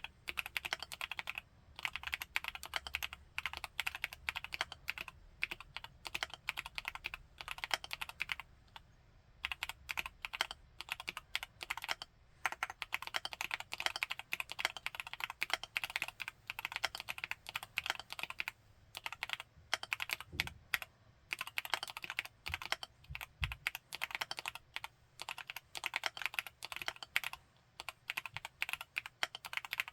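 Continuous fast typing on a Createkeebs Luminkey75 mechanical keyboard with Gateron Baby Raccoon linear switches: a dense run of key clicks, broken by a few short pauses.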